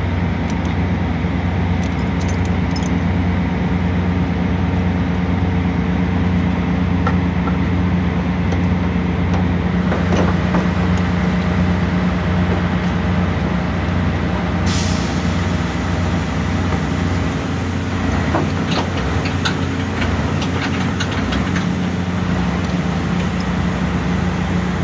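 A truck engine running at a steady idle: a constant low drone that does not change, with a few faint clicks in the second half.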